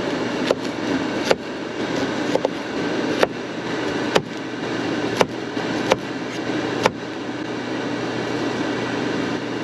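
A kitchen knife cutting through Brussels sprouts onto a cutting board: about eight sharp separate chops, spaced roughly a second apart, stopping about seven seconds in. Under them runs a steady whirring hum, an air fryer's fan running as it preheats.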